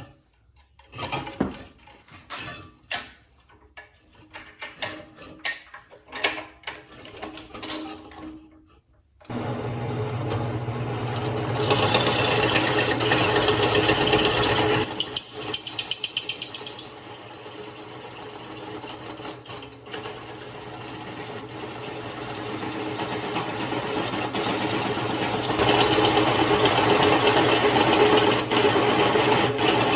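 Metal tools clinking and rattling as they are handled, then about nine seconds in a drill press starts and runs steadily, drilling a hole in a steel exhaust downpipe with a step drill bit. Its sound gets louder and softer as the bit cuts.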